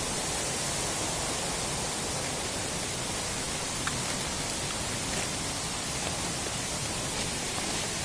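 Steady rushing of a waterfall, with rain falling.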